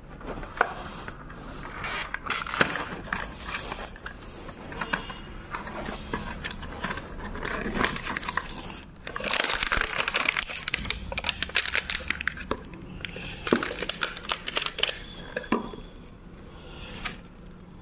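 Hands handling packaging: a cardboard box, paper shred filling and plastic wrapping rustling, crinkling and scraping, with scattered sharp taps and clicks. The rustling is thickest in the middle, then thins out near the end.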